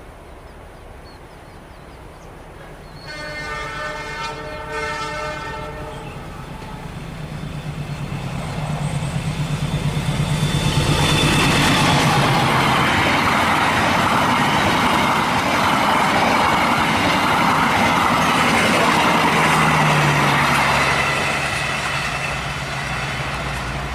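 A CC206 diesel-electric locomotive sounds a semboyan 35 horn blast of about three seconds, then passes close by with its engine running and the wheels and wagons rattling. The noise builds, stays loud for several seconds, and fades as the train goes away, the engine note dropping as it goes by.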